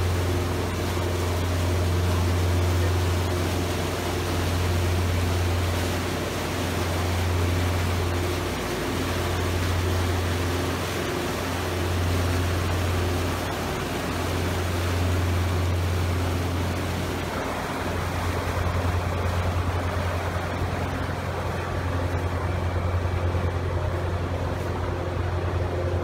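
Motor yacht's engines droning steadily under way, with wind and the rush of water from the wake. The drone swells and eases every couple of seconds and turns rougher a little past halfway.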